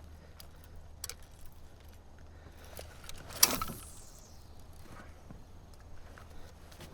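Scattered light clicks and knocks of gear being handled, with one louder knock about three and a half seconds in.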